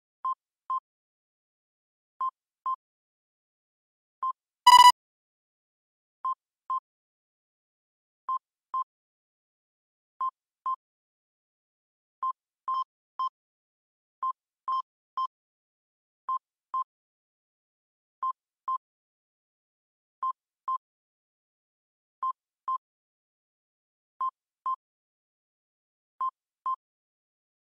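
Electronic alert beeps from an earthquake-monitoring display: a double beep repeating every two seconds, with one louder, brighter chime about five seconds in.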